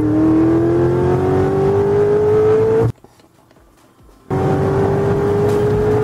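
Chevrolet Corvette's V8 engine accelerating, heard from inside the cabin: its pitch climbs steadily for about three seconds, cuts off suddenly, then climbs again a second and a half later.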